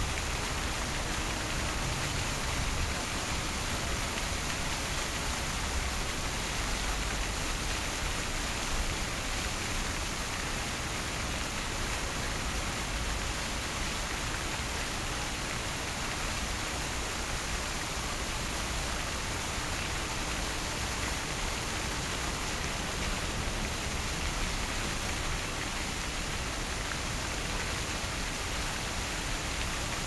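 Fountain water falling and splashing steadily, an even hiss of water with no breaks or changes.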